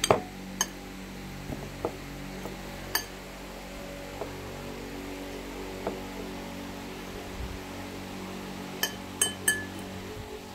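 Metal fork clinking against ceramic bowls while chicken is pressed into breadcrumbs. The clinks are sharp and ring briefly: the loudest at the very start, one just after, one about three seconds in, and three close together near the end, with a few fainter ticks between, all over a steady low hum.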